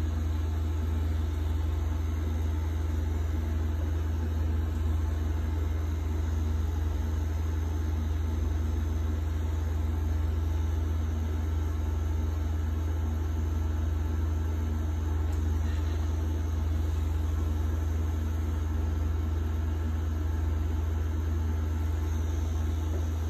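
Pen-style rotary tattoo machine running with a steady, unbroken low hum.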